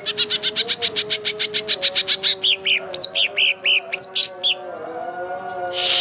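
Greater green leafbird (cucak ijo) singing: a fast rattling trill of about ten notes a second, then a run of short downward-slurred whistles, and a harsh rasping note near the end.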